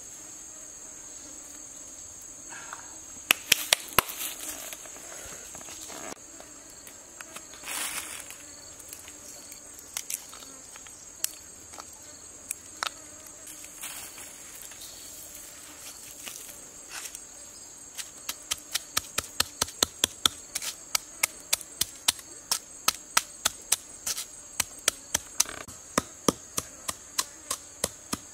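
Steady high-pitched drone of crickets or cicadas. A few sharp knocks come about three to four seconds in, then from about two-thirds of the way on a long run of quick, evenly spaced knocks, a little over two a second, from something being pounded by hand on the ground.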